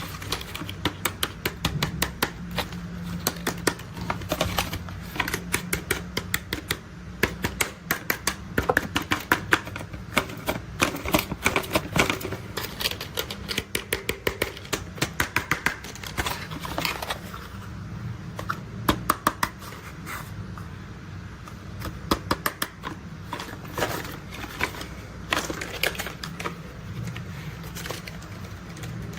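Toy construction vehicles being handled and played with: rapid, irregular clicking and clacking of small hard pieces, some sharp knocks close together, over a faint steady low hum.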